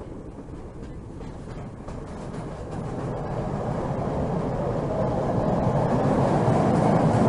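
Train running along the track, heard from inside a carriage: a steady rumble that grows louder toward the end.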